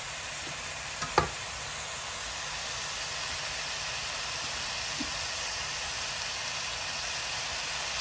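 Chicken pieces in onion-ginger-garlic paste sizzling steadily as they fry in oil in an aluminium kadai. A single sharp clink about a second in.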